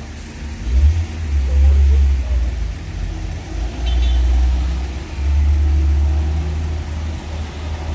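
Heavy diesel truck engine rumbling deep and uneven, swelling up and easing back several times.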